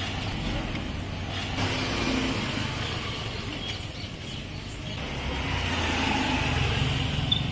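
Low rumble of a motor vehicle's engine among street noise, growing louder about five seconds in.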